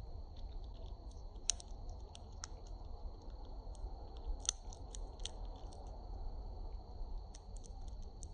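A bird cracking seed shells in its beak: irregular sharp clicks and crunches, a louder crack about a second and a half in and another about four and a half seconds in.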